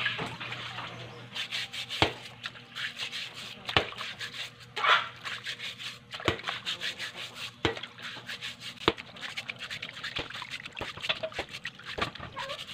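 Freshly dug taro corms being scrubbed with a sponge in a steel basin of muddy water: water sloshing and splashing, with scattered sharp knocks as the corms bump the basin.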